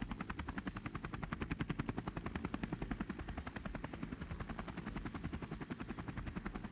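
Electronic rotor sound of a toy rescue helicopter: a steady, rapid chopping of about ten beats a second.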